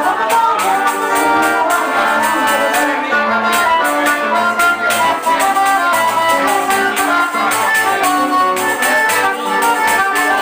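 Live forró band playing: accordion melody over guitar and zabumba drum, with hand percussion keeping a steady, quick beat.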